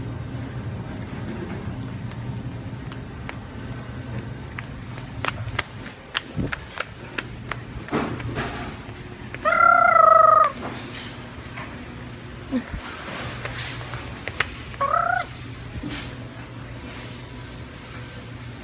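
A bird calling: one loud, drawn-out call lasting about a second about ten seconds in, and a shorter call about fifteen seconds in, over a steady low hum and a few scattered clicks.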